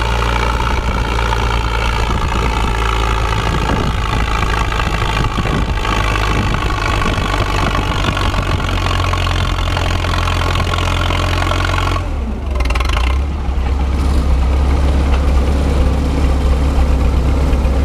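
Minneapolis-Moline U tractor's four-cylinder engine running steadily under load while pulling a weight-transfer sled. About twelve seconds in the note changes: the higher part falls away and a deeper drone grows louder.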